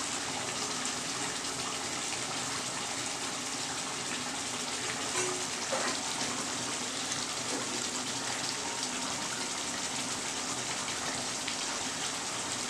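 Steady hiss of mutton and potato curry cooking in a kadai over a lit gas burner, with a few faint ticks.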